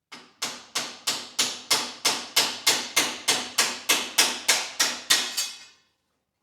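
A hammer striking repeatedly and evenly, about three blows a second, some seventeen in all, each knock dying away quickly before the next. It stops a little before the end.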